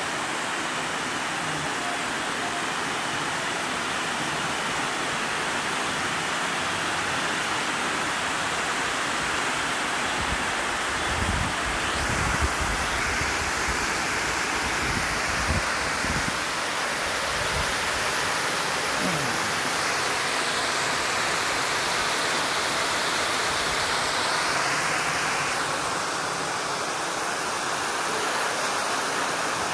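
Water overflowing a concrete dam spillway, a steady rushing pour down the weir face. A few brief low rumbles come in around the middle.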